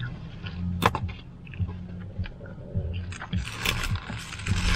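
Close-miked wet mouth sounds: lip smacks and small clicks as a ketchup packet is sucked and licked, with one sharp click about a second in. From about three and a half seconds on, the burger's paper wrapper crinkles as it is handled.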